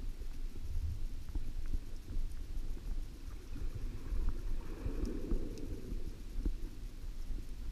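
Muffled low rumble of moving water heard underwater, swelling slightly about halfway through, with faint scattered clicks.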